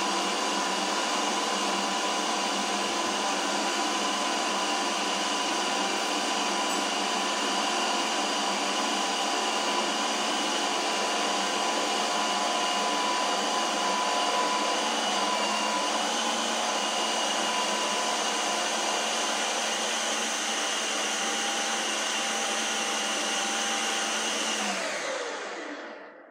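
Ninja Creami ice cream maker's motor running a processing cycle, a loud, steady machine whir with a constant whine. Just before the end it winds down, its pitch falling, and stops.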